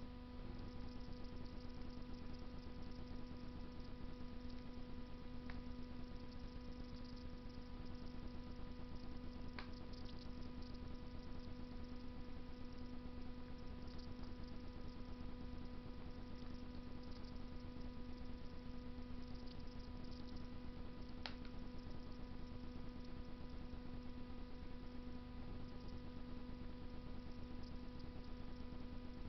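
Wood fire burning in a Russian masonry stove: a steady hiss with three sharp crackles spread through, over a steady hum.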